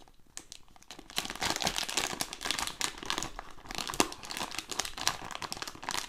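Crinkling and crackling of a silvery, foil-like plastic bag being opened and handled, starting about a second in and going on in quick sharp rustles.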